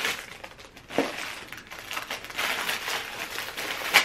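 Clear plastic wrappers crinkling as small plush toys are pulled out of them. Irregular rustling, with a sharp crackle about a second in and a louder one at the end.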